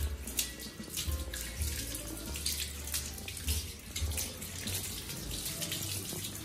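Water running and splashing steadily, with many small irregular splashes, as a freshly scrubbed brass hookah is rinsed on a wet tiled floor.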